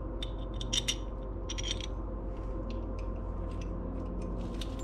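Small metal clicks and clinks of a bolt and spacer being handled against a billet aluminium oil catch can, busiest in the first second and a half and sparser after, over a steady low hum.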